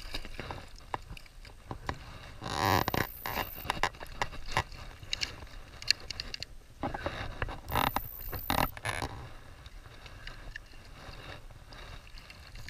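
Creek water splashing and sloshing as a small brown trout is let go from a landing net, with the net then dipped and swished through the water. The sound comes in several short splashy bursts.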